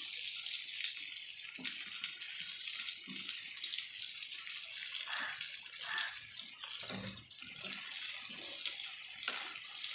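Banana pakoras sizzling as they deep-fry in hot oil in a metal kadhai, a steady hiss of bubbling oil. A slotted steel spoon knocks sharply against the pan twice in the second half.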